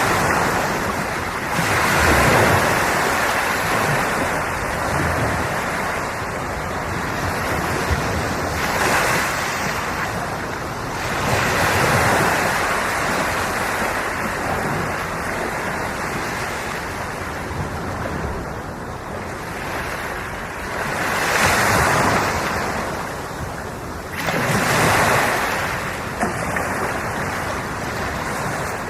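Sea waves breaking and washing onto the shore, the surf swelling and easing every few seconds.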